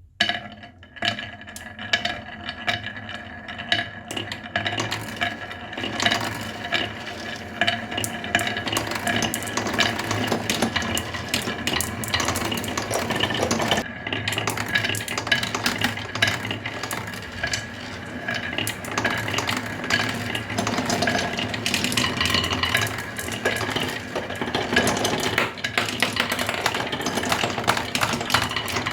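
Small electric motors and gearing of radio-controlled model construction machines whining steadily, with continual clattering and clicking. It starts suddenly.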